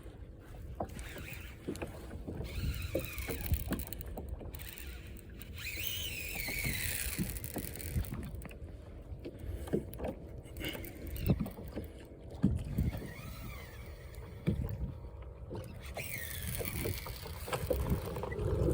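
Steady low rumble of wind and water on the microphone, with scattered short knocks and clicks from handling the fishing tackle while a fish is being fought.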